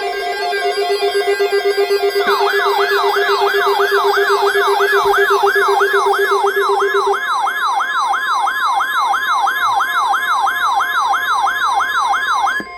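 Electronic siren tones, several layered. A steady pulsing tone and a slower warbling tone play first; from about two seconds in, a fast yelp siren joins, sweeping up and down about two and a half times a second. All of it cuts off just before the end.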